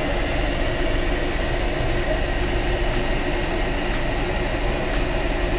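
Steady machinery hum with a deep rumble and a faint high tone, with light clicks about once a second.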